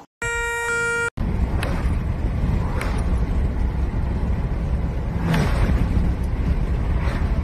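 Wind rushing and road noise from a moving car with its side window open, loud and steady. Near the start, a steady pitched tone lasts about a second before the wind noise begins.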